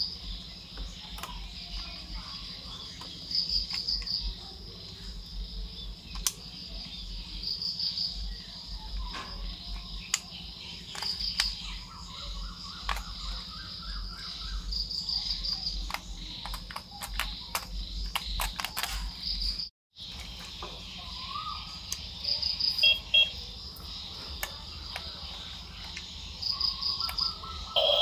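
Crickets trilling steadily, the high trill swelling every few seconds, with scattered light clicks and taps of hard plastic parts being handled and a quick run of clicks about two-thirds of the way through.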